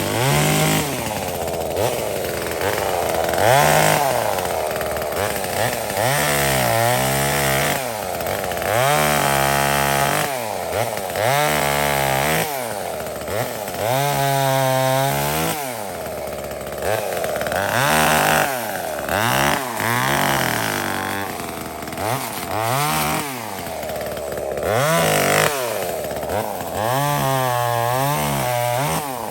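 Small 25cc two-stroke gas chainsaw revved up and down about a dozen times, its pitch climbing and dropping every two to three seconds as it is run through cuts in wood.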